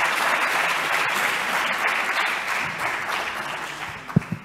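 Audience applauding, dying away over the last second or so, with a brief thump near the end.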